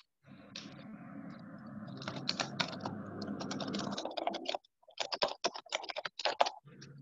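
Computer keyboard typing: a quick, irregular run of clicks over a steady low hum, which cuts off about four and a half seconds in while the clicks go on.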